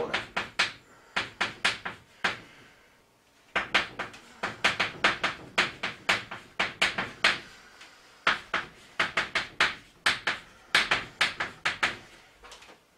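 Chalk writing on a chalkboard: quick taps and short scrapes of the chalk stroke by stroke, in three runs with brief pauses between.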